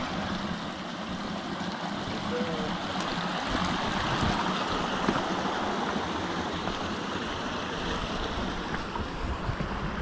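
Small rocky creek running over boulders and between pools: a steady rushing of water.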